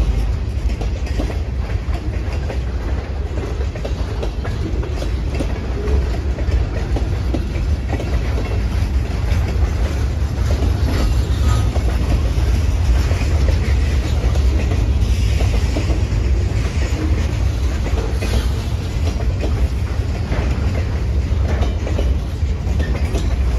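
Freight cars of the CSX M427 manifest train rolling steadily past close by: a continuous low rumble of steel wheels on the rails, with rapid clicking and clanking from the wheels and cars.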